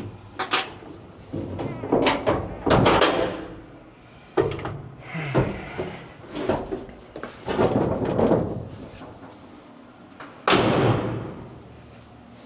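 Scattered knocks, clunks and clatter of things being handled, with a loud slam about ten and a half seconds in that rings away over about a second.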